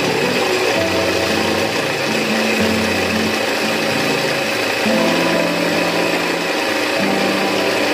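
Small electric food chopper running steadily, its blade mincing onion, garlic, ginger, lemongrass, dried shrimp and chili into a paste. Background music with a bass line plays alongside.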